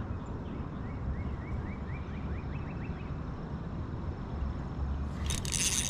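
Steady low rumble of wind buffeting the microphone. About a second in, a small bird calls, a run of short rising chirps that come faster and faster. Near the end a brief rush of noise.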